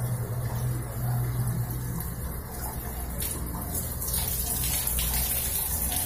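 Water running steadily from a tap fed by a gas water heater that has just been got going, over a steady low hum; the water hiss gets louder about three seconds in.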